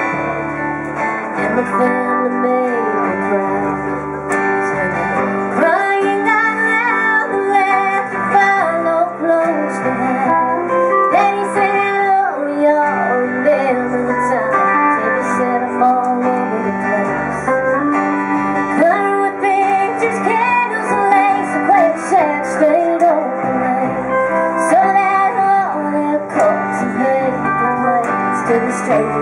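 Live country band: a woman singing lead over a strummed acoustic guitar, an upright double bass and a second guitar. The vocal comes in about six seconds in over the instrumental.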